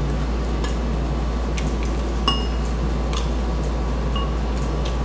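Metal spoon and fork clinking and scraping against a bowl while scooping food, several separate clinks, some ringing briefly, the loudest a little past two seconds in, over a steady low hum.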